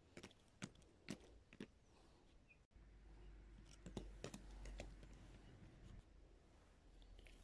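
Faint, scattered taps of a plastic toy horse's hooves knocked against paving stones as it is moved along by hand, a few single clicks at a time.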